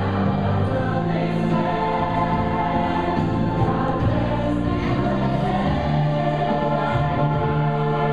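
Music with choral singing, a group of voices holding long notes over a steady accompaniment.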